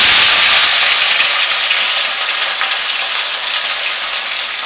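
Chopped bell peppers, tomato and scallion sizzling loudly in hot oil in a frying pan, the sizzle slowly dying down.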